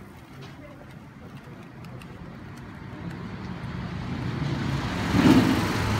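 A small flatbed truck's engine approaching along the street, growing steadily louder through the second half and loudest about five seconds in.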